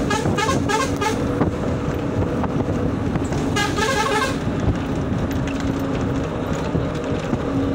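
Steady rumble of a moving vehicle heard from inside, with a horn sounding in a rapid string of short toots in the first second and again about three and a half seconds in.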